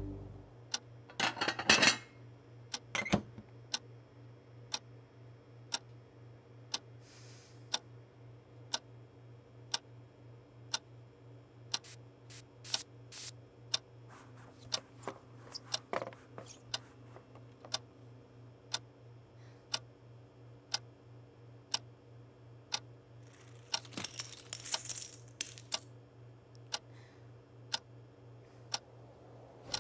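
Quartz wall clock ticking about once a second over a low steady hum. There is a short rustle about a second in and a longer scratchy rustle near the end.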